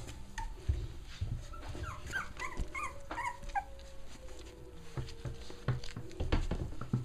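Five-week-old Cavalier King Charles spaniel puppies playing, letting out a quick string of short, high yips and squeaks partway through, among soft bumps and rustling as they tumble and are handled.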